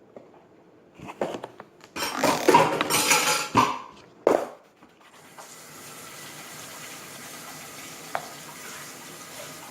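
Dishes and utensils clattering for a few seconds, then a tap turned on and water running steadily into a sink.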